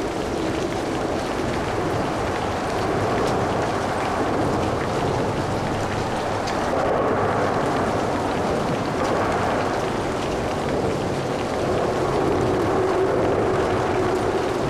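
Light traffic on a rain-wet road, tyres hissing and a low hum that swells and eases as vehicles pass, with rain pattering.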